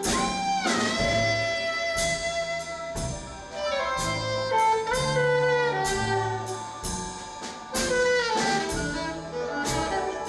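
Live jazz: a saxophone plays a melodic line, sliding between notes, over a drum kit with regular cymbal strikes and low bass notes underneath.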